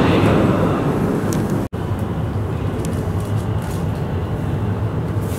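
Interior of a shinkansen car standing at the platform: a steady low hum and hiss of the train's ventilation and equipment with a few faint clicks. The sound cuts out completely for an instant about a second and a half in, and before that cut the noise is louder and busier.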